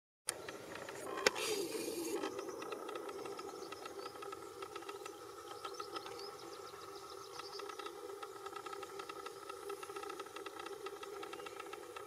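A motor vehicle's engine running steadily, with a sharp click about a second in and a short hiss just after it.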